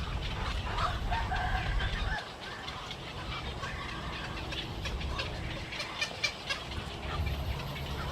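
A flock of birds calling over a low rumble that drops away about two seconds in and returns near the end.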